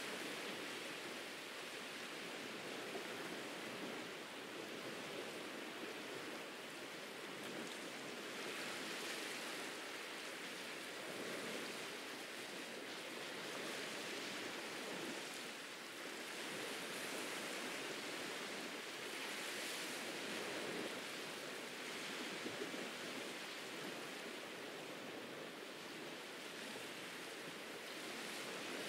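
Ocean surf washing on a beach: a steady hiss of water that swells and eases every few seconds.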